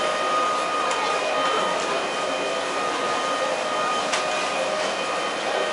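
Stopped Mexico City Tren Ligero light-rail train standing at the platform with its doors open: a steady electric whine with several fixed tones, with a few faint knocks.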